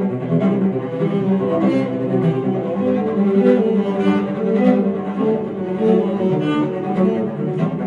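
Two cellos playing a duet, both bowed, with a continuous line of notes changing every fraction of a second.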